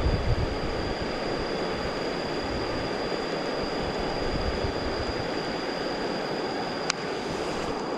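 Steady rushing noise with a thin, high, steady tone above it, and one sharp click near the end.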